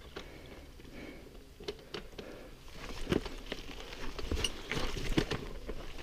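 Mountain bike rolling down a rocky dirt trail, its tyres running over dirt and stones. About halfway in, rougher ground sets off a run of sharp knocks and rattles from the bike.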